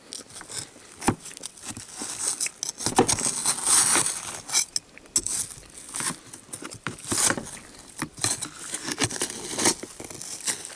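A baked s'more of graham cracker, chocolate and marshmallow being broken and dug apart by hand: irregular crackling, scraping and tapping, with sharp clicks scattered throughout.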